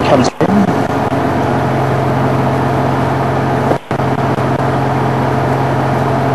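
Safari game-drive vehicle's engine idling, a steady low hum with a haze of noise above it. It drops out briefly twice, about half a second in and near the four-second mark.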